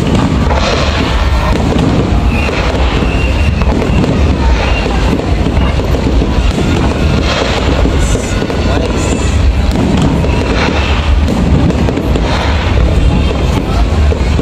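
Aerial firework shells launching and bursting in quick succession, a continuous heavy rumble of booms with sharp cracks and crackle, with music playing alongside.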